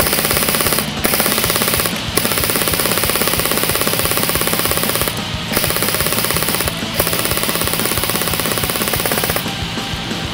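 G&P M249 Minimi Para airsoft electric gun firing long full-auto bursts with a few short pauses between them, over background music.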